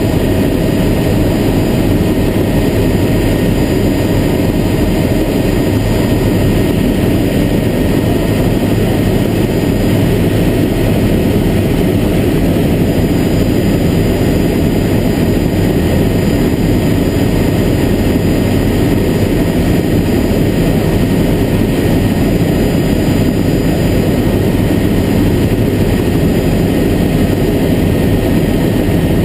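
Helicopter engine and rotor running steadily in flight, a loud continuous drone heard from inside the cabin.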